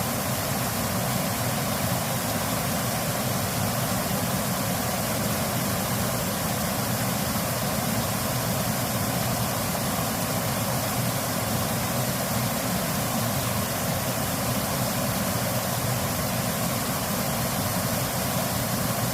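Mountain stream water rushing, a steady even noise that does not change.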